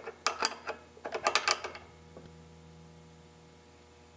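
Open-end wrench clicking against the rocker pivot of a Kohler Courage XT engine as the pivot is turned in small steps to set the exhaust valve clearance: a quick run of sharp metal clicks over the first two seconds, then only a faint steady hum.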